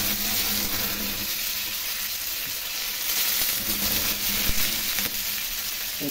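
Hot oil sizzling steadily in a small pan, frying a tempering (baghar) of whole red chillies, green chillies, mustard seeds, cumin and freshly added curry leaves.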